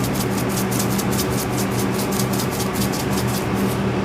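Seasoning shaker being shaken rapidly over meat, its grains rattling about five or six times a second and stopping near the end, over a steady low hum.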